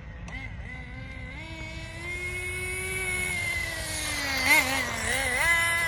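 Team Associated Nitro TC3 RC car's small .15 two-stroke glow engine running at speed, its pitch rising, holding and falling as the car is driven. It is loudest and wavers about four and a half seconds in. The owner suspects its two-speed transmission isn't shifting and is stuck in second gear.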